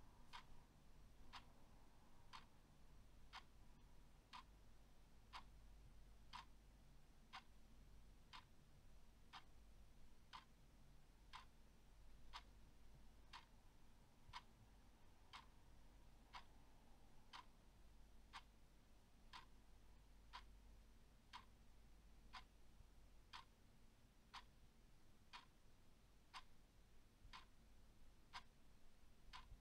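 Clock ticking faintly and steadily, about one tick a second.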